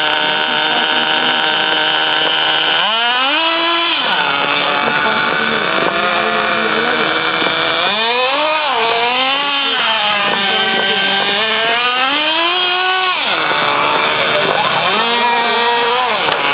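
Small two-stroke engines of petrol-powered RC cars running and revving, the pitch rising and falling over and over as the throttle is worked, with sharp climbs about 3 and 8 seconds in.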